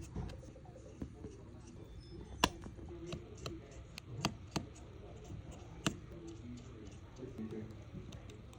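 Sparse sharp clicks and light taps of small hard objects, spaced irregularly, over a faint murmur of voices.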